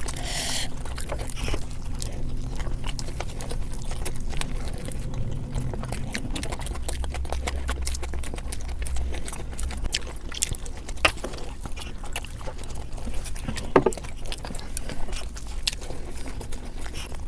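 A person chewing and biting food close to the microphone: many small wet mouth clicks over a low background rumble.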